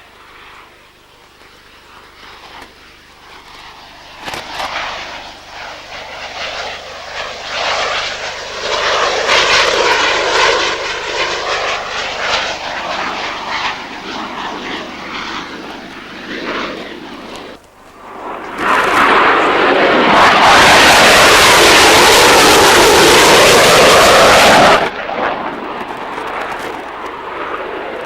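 Military jet aircraft passing low overhead. The engine noise builds to a peak with a swirling, sweeping tone as it goes over, then drops away. A second, louder pass follows and cuts off abruptly near the end.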